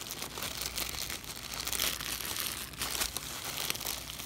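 Plastic packaging wrap, bubble wrap among it, being handled and pulled apart: a steady, irregular crinkling and rustling.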